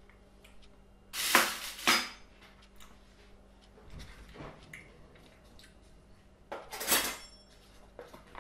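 Metal teaspoons clinking as they are set down, two sharp ringing clinks a second or so in, then a duller knock, then cutlery clattering in a kitchen drawer.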